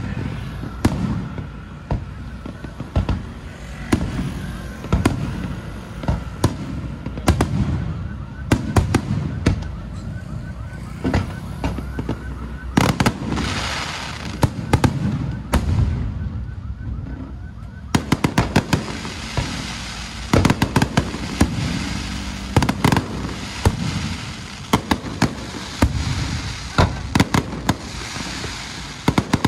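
Fireworks and firecrackers going off in a long salute: repeated bangs and booms, with rapid strings of sharp firecracker cracks from about two-thirds of the way through.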